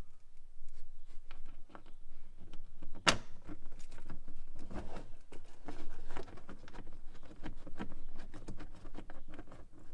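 Hands working a bolt and large washer through plastic boot trim and threading it into its clip. Irregular small clicks, knocks and rustles, with one sharp click about three seconds in.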